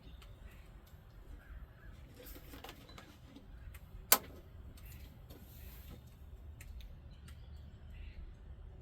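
Faint small handling noises over a low rumble, with one sharp click about four seconds in, while oil is added to a small outboard's crankcase.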